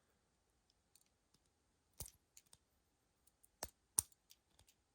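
Small tools of a Victorinox Midnight Mini Champ keychain multitool clicking as they are folded and opened: a few sharp snaps about two seconds in and again near the end, with faint ticks between.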